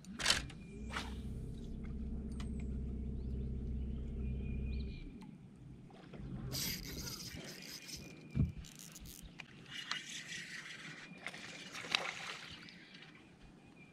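An electric bow-mounted trolling motor hums steadily for about four seconds and then cuts off, just after a sharp click as a lure is cast. Later there are stretches of hissy rustling with a few sharp clicks.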